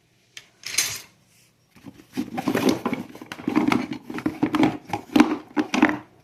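Metal hand tools clinking and clattering as they are handled and drawn out of a tool bag. A single click and a short rustle come first, then a busy run of knocks and clinks for about four seconds.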